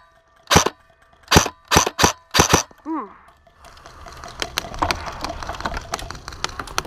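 Airsoft gun firing six sharp single shots over about two seconds, followed by scuffling and rustling of movement with small clicks.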